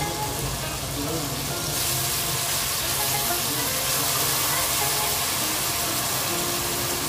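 Sauce poured into a hot pan of sautéed vegetables, sizzling and frying; the sizzle grows stronger about two seconds in as the liquid hits the hot pan, with a spatula stirring through it.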